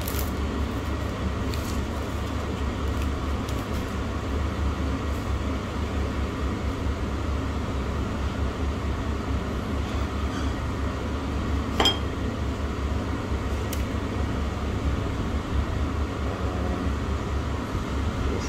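Restaurant room tone: a steady low hum with a single sharp clink of tableware about two-thirds of the way through, and a fainter tap a couple of seconds later.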